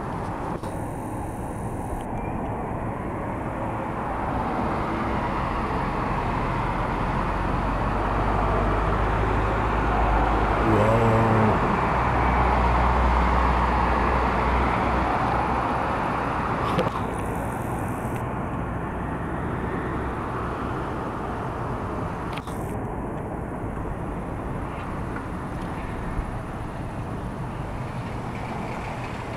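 Distant thunder rolling in a long, deep rumble that swells to its loudest about halfway through and slowly fades, over steady outdoor background noise. Two short clicks come later on.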